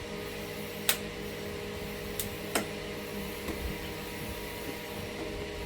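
Three sharp clicks as the battery charger's leads are connected to 24-volt lead-acid battery terminals, the kind of snap a charger's connection spark makes. A steady electrical hum runs underneath.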